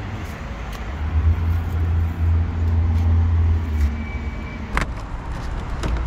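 Low rumble of a motor vehicle's engine, loudest for about three seconds from about a second in, over a faint steady hum, with two sharp clicks near the end.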